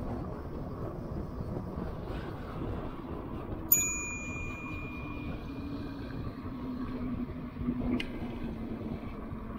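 Steady wind and tyre noise from an electric bike riding a paved trail at speed. Over it comes a single bicycle-bell ding, about a third of the way in, that rings on for about two seconds.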